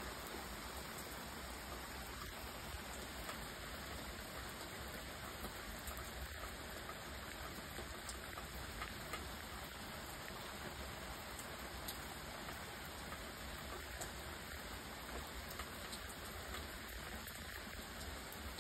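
Quiet, steady light rain falling on a lawn, garden beds and wet paving, with scattered faint ticks of single drops.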